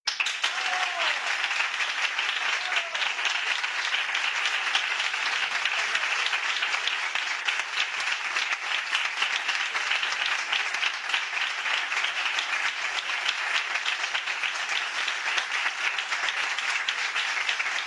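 Crowd applause: a dense, steady patter of many hands clapping.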